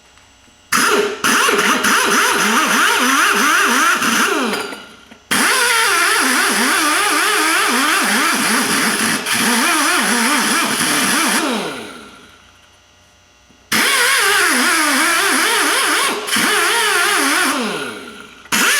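Rotary tyre buffer running in three long bursts, its pitch wavering as it is pressed against the rubber, roughing up the tyre's inner liner around a puncture to prepare it for a plug patch. The second burst winds down slowly instead of cutting off.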